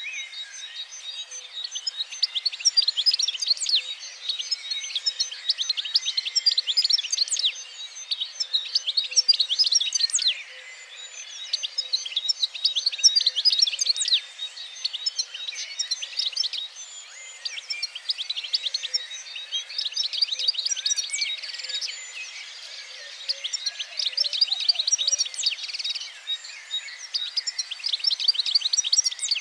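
Songbirds singing: rapid, dense, high twittering in phrases a few seconds long, with short lulls between them.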